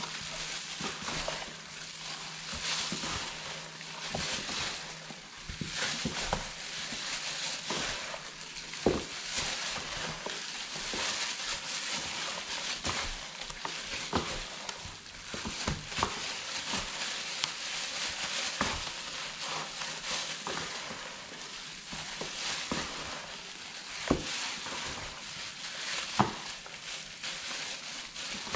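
Hands mixing raw chicken wings in a wet marinade in a bowl: continuous wet squishing and crackling, with scattered sharp clicks.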